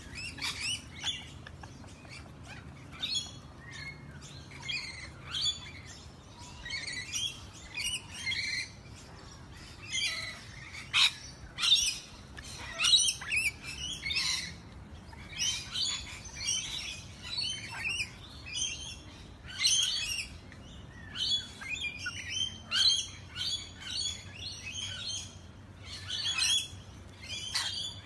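A flock of rainbow lorikeets chattering: many short, high-pitched calls overlapping, several a second, throughout.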